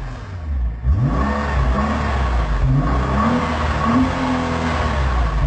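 Car engine revved in a few throttle blips, its pitch climbing sharply about a second in and then rising and falling several times. The accelerator is worked remotely from a game controller.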